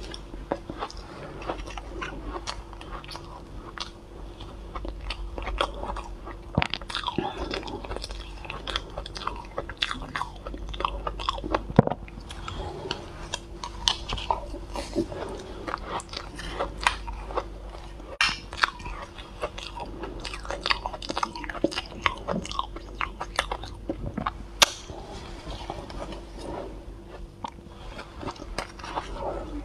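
Biting and chewing soft, fluffy shaved ice ("cotton ice"): a dense run of small, soft crunches, with a couple of sharper crunches, one near the middle and one later on.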